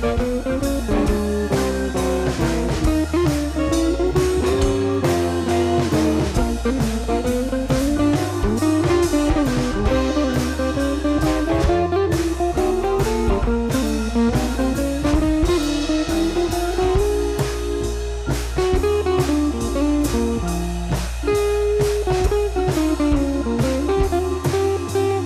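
Background music: a blues tune with a guitar melody over a steady drum beat and a bass line.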